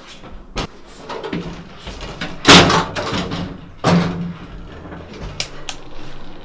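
Elevator doors being shut: a few knocks, then one loud bang about two and a half seconds in and another thud over a second later.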